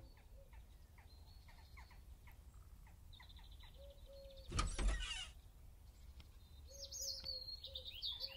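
Birds chirping faintly, with a short scraping burst about halfway through as a blue metal door is opened.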